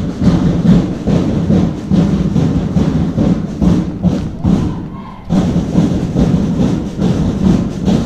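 Loud, distorted drumming in a steady beat, with a short break a little under five seconds in.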